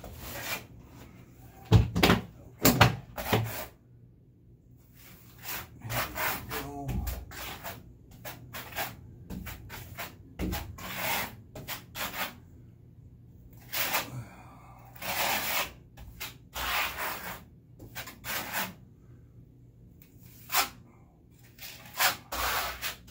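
Hand trowel scraping across a wall in irregular strokes, spreading a thin cement base coat for reinforcing mesh to grab onto. The loudest strokes come about two to three seconds in.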